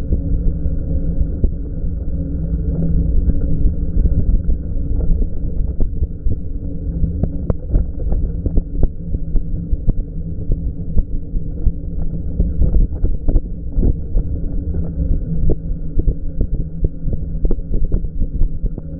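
Loud, deep, muffled rumble of wind buffeting an action camera's microphone on a moving e-bike, with scattered short clicks and knocks through the middle.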